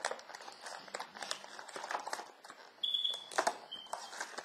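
Plastic headphone packaging being handled: a run of small clicks and rustles. About three seconds in there is a brief high tone, then a fainter one just after.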